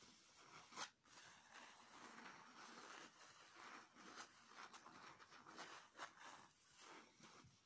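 Faint rustling and crinkling of a plastic reusable shopping bag being smoothed and folded by hand, with two sharper crackles.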